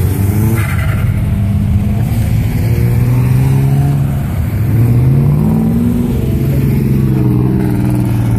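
Cars driving past with their engines and exhausts running loudly. One speeds up with a rising pitch about four to five seconds in.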